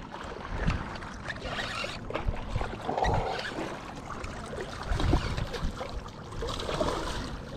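Wind buffeting the microphone over water lapping against a small fishing boat, with scattered light knocks of gear being handled.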